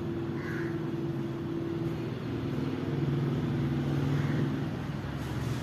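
Street traffic: a motor vehicle's engine running steadily nearby, its pitch shifting about two seconds in.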